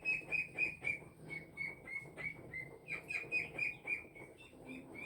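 A bird calling in a quick series of short chirps, about four a second, in two runs. The pitch steps slightly lower through each run.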